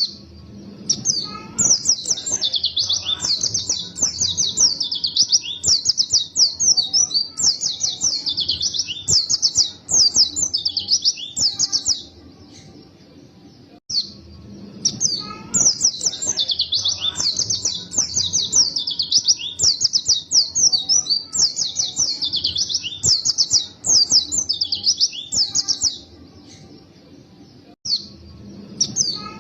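White-eye (pleci) singing a fast, dense, high-pitched twittering song of chirps and trills, in long runs of about ten seconds broken by two short pauses.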